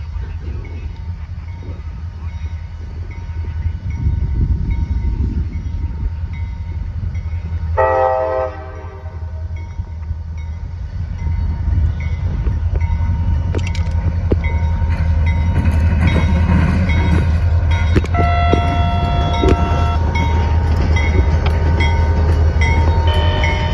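CSX SD40-2 diesel-electric locomotive with its EMD 16-cylinder two-stroke diesel working as it approaches and passes, its deep engine rumble growing louder. Its air horn sounds a short blast about eight seconds in, a longer steady blast of about two seconds later on, and starts again near the end.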